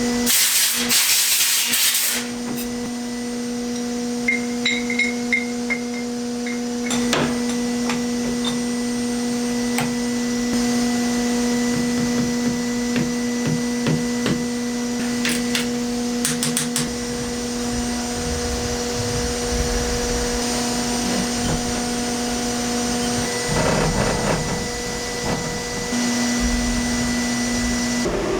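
Steady machine hum from a vertical CNC mill at rest, with scattered metallic clicks and clanks as aluminium parts and 1-2-3 blocks are set and tightened in the mill vise. A brief loud hiss comes near the start.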